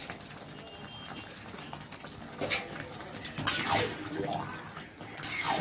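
Metal spatula stirring a thick cauliflower and potato curry in a metal karahi, stirring in sugar at the finish. It scrapes and knocks against the pan several times, loudest about halfway through, over the steady sound of the curry cooking.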